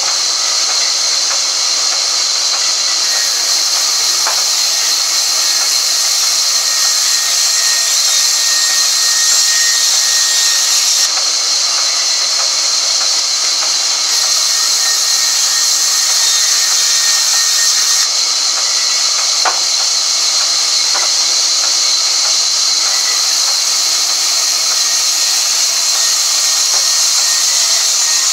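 Sawmill band saw ripping a long timber plank: a loud, steady high hiss from the blade cutting through the wood, with a few faint knocks.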